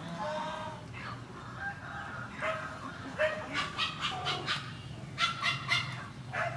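Short animal calls: a few pitched calls in the first half, then a run of quick, sharp calls, several a second, in the second half.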